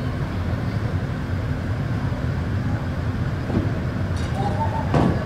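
Steady low rumble of the air flow driving an artificial indoor tornado, with a short knock about five seconds in.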